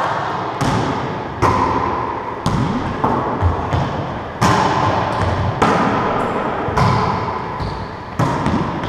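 A wallyball rally: the rubber ball is smacked by hands and rebounds off the walls in a series of sharp hits, about one a second. Each hit rings out in the hard-walled racquetball court.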